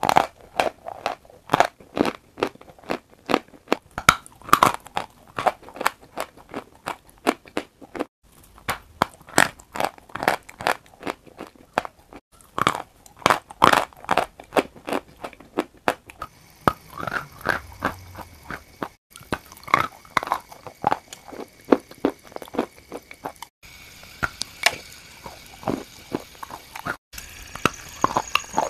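Close-miked crunching and chewing of a bitten block of sawn chalk: a rapid run of sharp, dry crunches. It is broken off abruptly several times and starts again each time.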